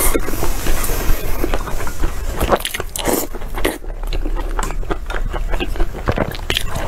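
Close-miked eating: biting into and chewing corn on the cob, with irregular crunches and clicks.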